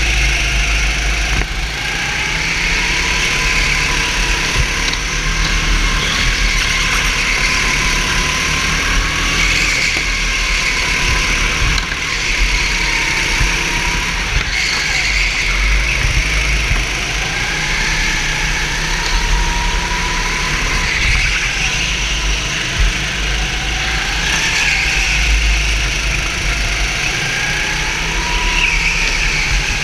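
Racing kart engine heard from onboard at full race pace, its revs rising and falling over and over as it brakes and accelerates, over a heavy low rumble.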